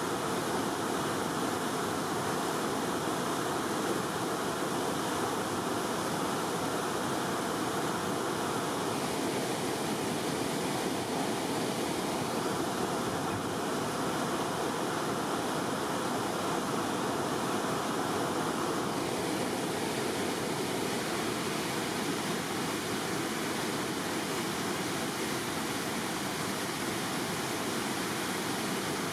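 Steady rush of river water pouring through a diversion weir's gates.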